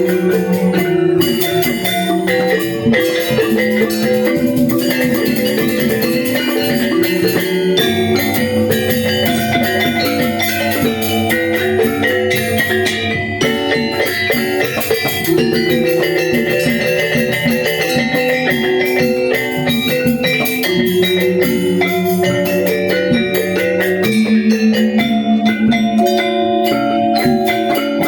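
Balinese gamelan angklung ensemble playing a tabuh kreasi piece: bronze metallophones ringing in dense, quick runs of pitched notes over deeper held tones.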